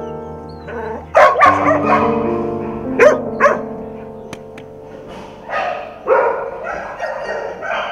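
Dogs barking in a kennel, short barks in quick pairs about a second in and three seconds in, then more barking near the end, over soft background music with held notes.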